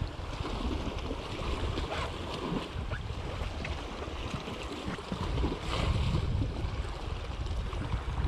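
Small sea swell washing and splashing against shoreline rocks, with wind buffeting the microphone; the wash swells louder about two-thirds of the way through.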